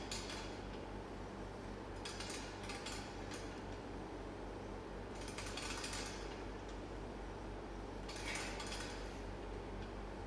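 Cable machine worked through pushdown reps: a metallic rattle and clink from the weight stack and pulley cable with each rep, about every two and a half seconds, over a steady low hum.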